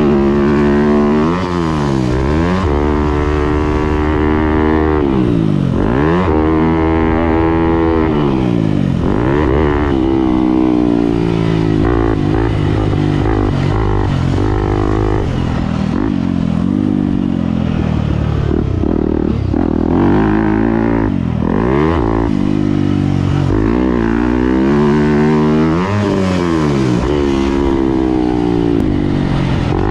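2018 Yamaha YZ250F's single-cylinder four-stroke engine being ridden hard, revving up and down over and over. The pitch climbs, drops sharply off the throttle and climbs again several times through the stretch.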